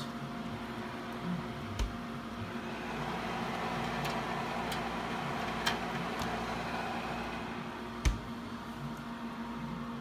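Refrigeration unit of a Monster-branded CTM-026-3E commercial display fridge running with a steady hum, its compressor noise described as extremely loud. A few faint clicks and two soft knocks, about 2 and 8 seconds in, sit over the hum.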